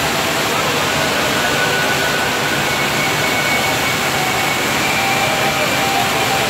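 Water from a bowl-shaped water slide pouring down in a sheet and splashing into the pool below: a steady, unbroken rush.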